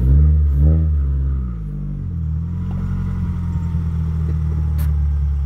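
Scion tC's 2AR-FE four-cylinder engine revving up briefly twice, as when pulling the car up onto low-profile ramps, then running steadily at low revs.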